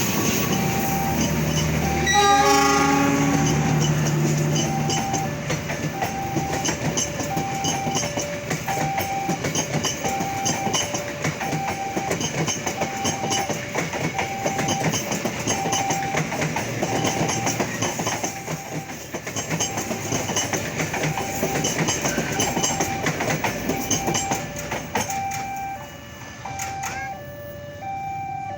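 A diesel train horn blasts about two seconds in. Then the train rolls past with its wheels clacking over the rail joints, while the level-crossing warning alarm repeats its two-tone signal throughout, a sign that the crossing is closed for the train.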